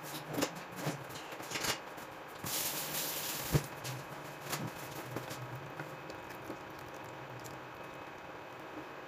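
Kitchen handling sounds: scattered clinks and knocks of utensils and cookware, a brief hiss about two and a half seconds in, and a sharp knock about a second later. Then only a low steady hiss.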